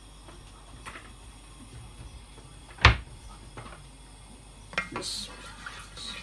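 Kitchen pots and utensils being handled: one sharp, loud knock about three seconds in, with a few lighter clicks and knocks around it.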